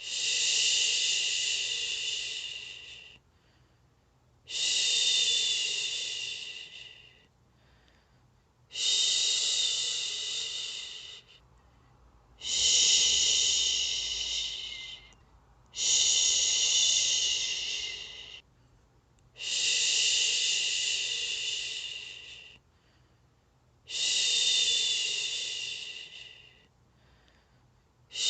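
A person making a long, hissing 'shhh' shushing sound over and over, each shush lasting about three seconds and fading away at its end, with a short pause before the next. The steady, repeated shushing is meant to soothe a baby to sleep.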